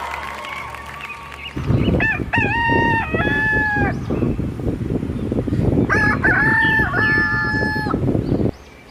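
A rooster crowing twice, each crow about two seconds long, over a loud rough noise that cuts off suddenly near the end.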